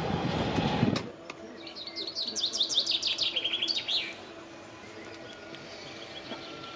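A songbird sings a quick run of descending high notes ending in a flourish. Before it, a loud rumbling noise cuts off suddenly about a second in.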